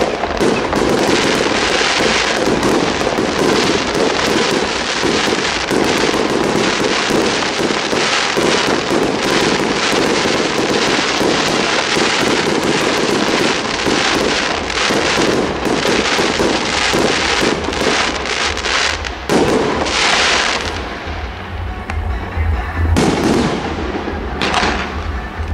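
Aerial fireworks display: a dense, continuous barrage of crackling and popping shell bursts. Near the end it thins out into a few separate loud bangs, followed by a low rumble.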